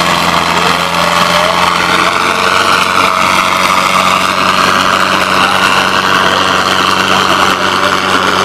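Two farm tractors' diesel engines running flat out under heavy load as they pull against each other in a tractor tug-of-war, a loud, steady drone.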